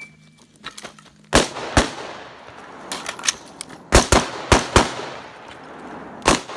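Gunfire from an AR-style rifle: two shots about a second in, then a quick string of four around four seconds in, each with a long echo. The shooter then switches to a pistol, which fires twice near the end. A short beep comes right at the start.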